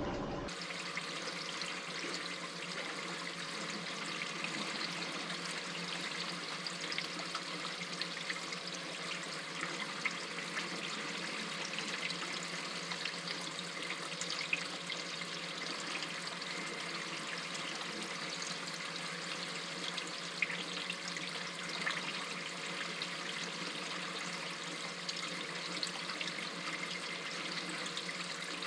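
Steady trickling and splashing of water running through an aquarium sump, with a few faint clicks.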